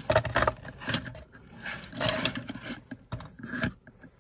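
Carved bead necklace being handled, its beads clicking and clattering against one another in irregular little bursts.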